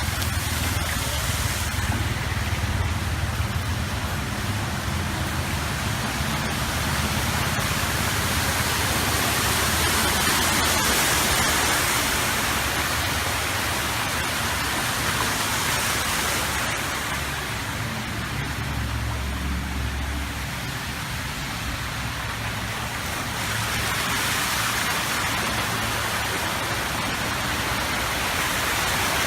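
Steady rushing water noise, swelling and easing a little in level, with a low rumble underneath.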